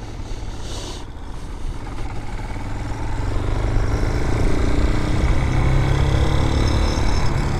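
Vitacci BSR Raven 250 dirt bike's air-cooled 250cc engine running on the move, getting louder and rising in pitch as it accelerates about three seconds in.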